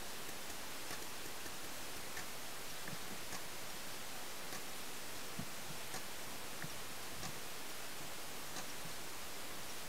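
Steady hiss with faint clicks and ticks scattered irregularly through it, about a dozen in all.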